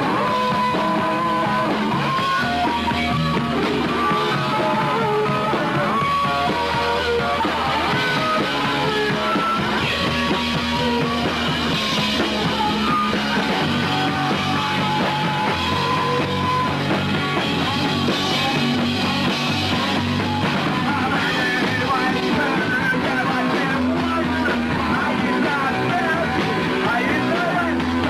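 Punk rock song playing, a band with singing.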